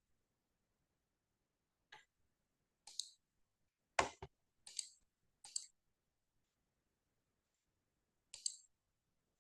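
Scattered computer mouse clicks, about six in all and unevenly spaced, the loudest a quick double click about four seconds in.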